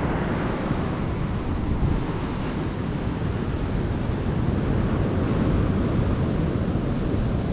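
Steady wind noise on the microphone mixed with the wash of ocean surf, heaviest in the low end and without clear breaks.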